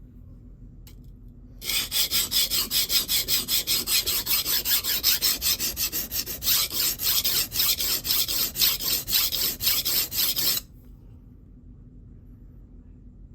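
Knife blade stroked rapidly back and forth on a DMT extra-coarse (about 220 grit) diamond plate, a dry, gritty scraping in an even run of strokes that starts a couple of seconds in and stops abruptly a few seconds before the end. This is the coarse stage of establishing a new edge, grinding to raise a burr.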